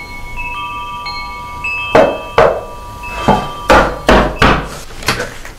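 Metal-tube wind chime ringing, several tones starting one after another and lingering. From about two seconds in, a series of sharp knocks on a wooden door.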